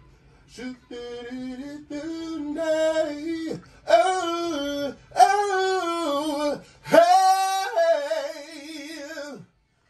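A voice singing a run of held notes in phrases of one to three seconds with short breaks between, stepping from pitch to pitch; the last, longest phrase wavers with vibrato.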